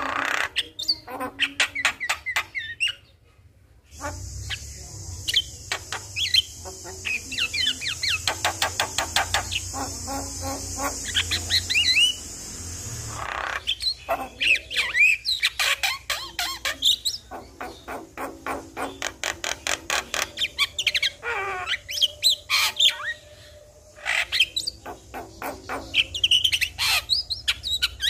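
Javan myna (jalak kebo) singing a fast, varied run of chattering squawks, chirps and gliding whistles. The background hiss changes abruptly about four seconds in and again past the middle, where recordings are spliced together.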